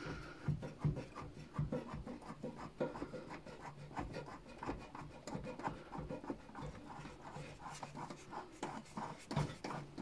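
Screwdriver turning the screw of a Samsung washing machine's drum clamp to loosen the door-seal cuff: a run of small irregular clicks and scrapes, about one or two a second.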